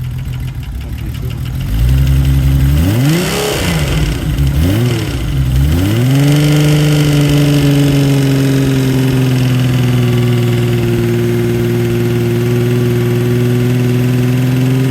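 Freshly rebuilt Kawasaki KZ1300 inline-six engine running. It is blipped up twice, about 3.5 and 5 seconds in, then brought up to a steady raised speed and held there.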